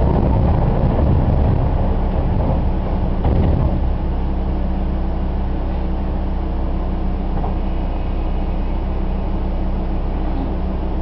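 Stationary ex-Seibu 701-series electric train's onboard equipment humming steadily with a low, constant tone. There is a short louder patch about three seconds in.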